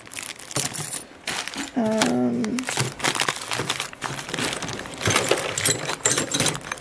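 Metal drawer and door pulls clinking and clattering as a hand rummages through them in a clear plastic box, with plastic bags crinkling.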